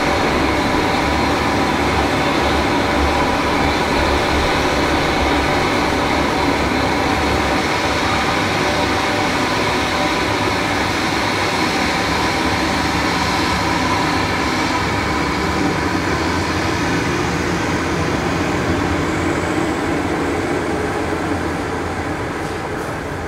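Dornier 228-212's twin Garrett TPE331 turboprop engines running steadily, a high whine over a low drone, growing a little quieter in the last couple of seconds.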